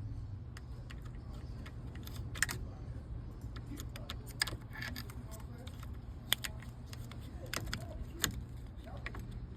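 Scattered sharp metallic clicks and clinks, a second or two apart, as small steering-column parts are handled and fitted back in place, over a steady low hum.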